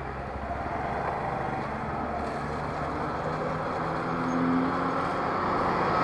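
Noise of a moving motorcycle, with an oncoming bus's engine growing louder as it approaches and comes alongside near the end.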